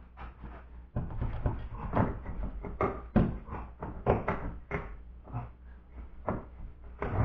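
A car's power steering rack being worked loose and manoeuvred out from underneath: a string of irregular metal knocks and clunks, a few a second at their busiest, over a low steady hum.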